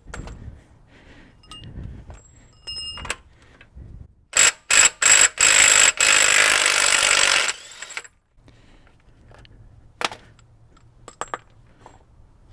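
Impact wrench on a 36 mm socket hammering at the truck's front axle nut: a few short blips, then a steady run of about two seconds as it works the nut loose. There are light metallic clinks of the socket and tool before it, and a few sharp clicks near the end.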